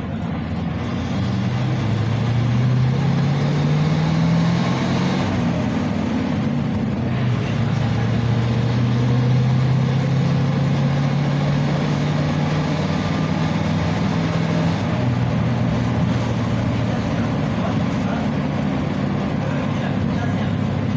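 Inside a PAZ 320302-22 bus on the move: its ZMZ-52450A V8 petrol engine pulling under load. The engine note rises over the first few seconds, drops in pitch at a gear change about five seconds in, then holds steady as the bus drives on.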